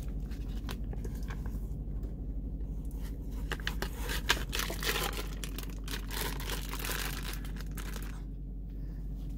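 Plastic vacuum-pack bag crinkling and crackling as hands tear it open and slide a seasoned pork shoulder roast out of it into a slow cooker crock. The crackling is dense for most of the stretch and thins out near the end, over a steady low hum.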